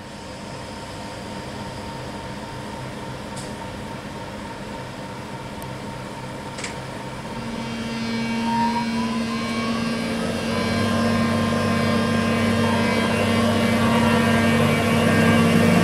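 Eurostar e300 (Class 373) high-speed train's traction equipment whining as the train starts to pull away. A steady hum with a couple of faint clicks gives way, from about eight seconds in, to a louder set of tones that rise in pitch as the sound grows steadily louder.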